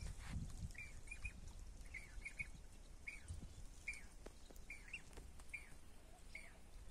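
A small bird chirping repeatedly, faint: short falling notes about one or two a second, some in quick pairs.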